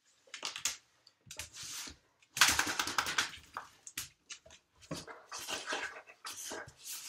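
A mastiff making a run of short, noisy dog sounds as it gets up and moves about after its bath, the loudest about two and a half seconds in.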